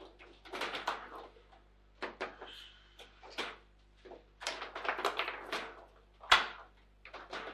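Table football in play: hard clacks and knocks from the ball being struck by the rod figures and hitting the table, coming in irregular clusters. The sharpest hit comes about six seconds in.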